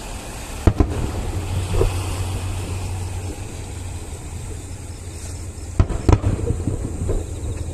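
Aerial firework shells bursting: two sharp bangs close together about a second in and two more near the end, with a low rolling rumble between them.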